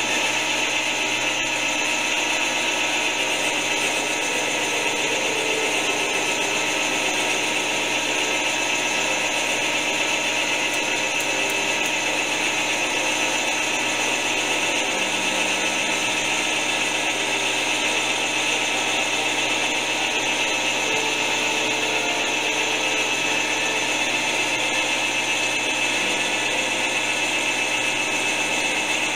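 Metal lathe running steadily while its tool bit turns down a wooden dowel pin, shaving wood off as it cuts, with a constant high whine over the cutting noise.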